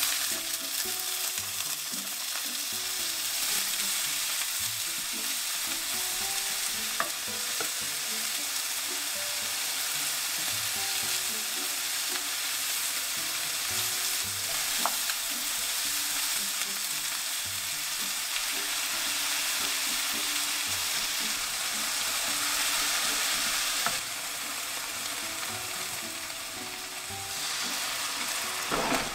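Food sizzling steadily as it is stir-fried in a frying pan, with a few light taps of a utensil. The sizzle eases a few seconds before the end, followed by a brief clatter.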